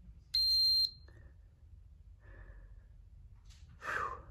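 Kewtech KT63 Plus multifunction tester giving one high beep of about half a second during an RCD trip-time test at half rated current. A short breath is heard near the end.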